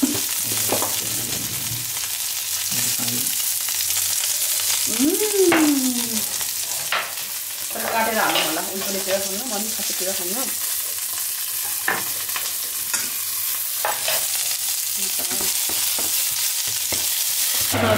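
Food frying in hot oil in a pan, a steady sizzle, with a spoon stirring and now and then knocking against the pan.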